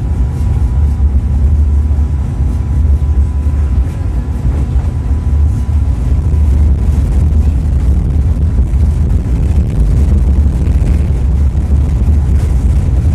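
Tatra T3SUCS tram running along, heard from inside the passenger cabin: a steady, heavy low rumble, with a faint high steady whine over it for the first few seconds.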